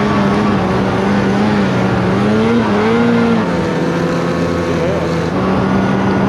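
Snowmobile engine running hard under load as the sled climbs a slope. Its pitch rises and wavers about two and a half seconds in, then drops a little and holds steady.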